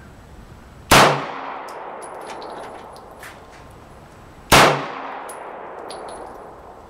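Two gunshots about three and a half seconds apart, each trailing off in a long echo.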